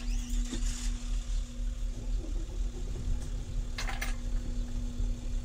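Engine idling with a steady low throb and hum, heard from inside a camper van's cab. A couple of sharp clicks come about four seconds in.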